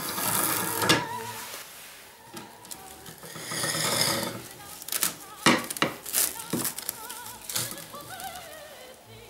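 Background music, with plastic cling film rustling and crackling as it is pulled off a wall-mounted wrap dispenser, twice, followed by a run of sharp plastic clicks and knocks from handling the dispenser.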